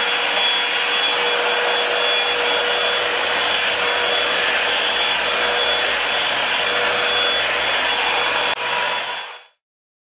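Revlon One-Step hair dryer brush running on its high setting: a steady, loud rush of blown air with a constant whine over it. It cuts off near the end.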